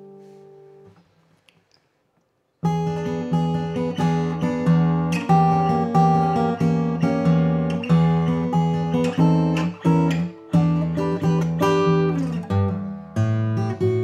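Taylor 322ce 12-fret acoustic guitar: a chord rings and fades away, a short pause, then about two and a half seconds in the playing resumes with a steady run of plucked notes and chords.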